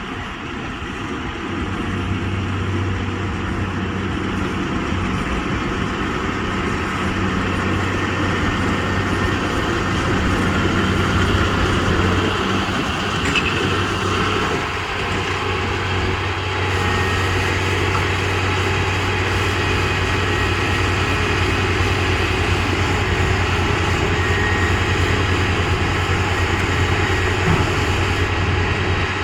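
New Holland T7.185 tractor running steadily while driving a baler, a continuous engine and machinery drone with a strong low hum throughout.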